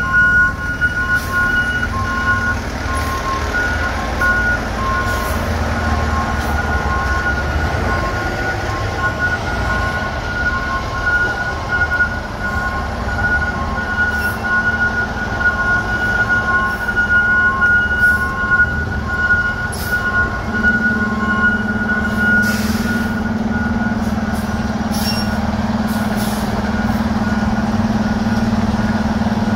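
Spartan ERV MetroStar fire trucks' diesel engines running as the rigs back into the station bays, with a reversing alarm beeping a little faster than once a second. The beeping stops about two-thirds of the way through, leaving a steady low drone with a short hiss soon after.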